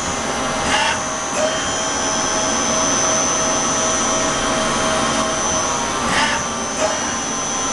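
Tsugami PL3 CNC gang tool lathe running its automatic cycle: a steady machine whir with a constant high whine. A lower steady tone holds from about one and a half to five and a half seconds in, and a few short rushes of noise come near the start and near the end.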